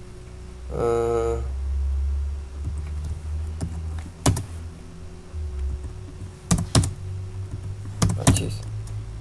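Computer keyboard keystrokes as commands are typed and entered: scattered sharp key clicks, several in quick pairs, with a short steady tone about a second in.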